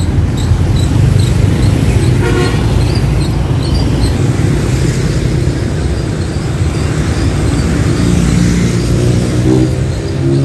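Road traffic with motorbike and car engines passing close. A short horn toot comes about two seconds in, and near the end a vehicle engine rises in pitch as it speeds up.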